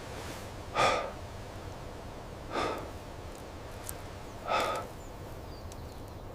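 A person breathing out audibly three times, about two seconds apart, over a low steady background.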